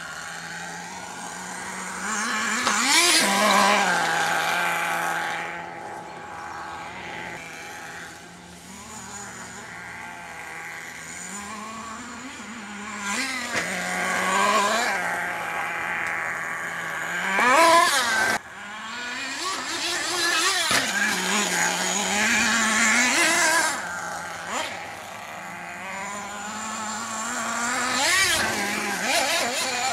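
HPI Firestorm nitro RC truck's small two-stroke glow engine running, settling to a steady idle between repeated bursts of revving that rise and fall in pitch as the truck is driven hard on loose ground.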